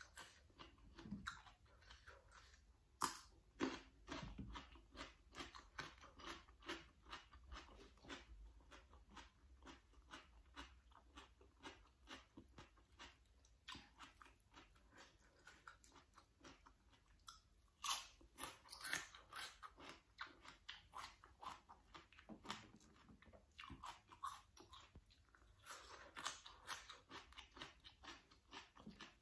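Close-miked crunching and chewing of crisp vegetables such as cucumber dipped in chili paste, a fast run of short sharp crunches with a few louder bites.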